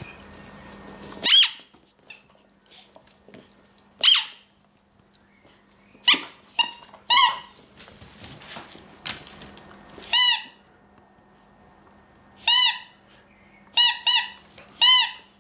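Rubber squeaky toy squeezed by hand, giving about ten short squeaks at irregular intervals, some in quick pairs. Each squeak's pitch rises and falls.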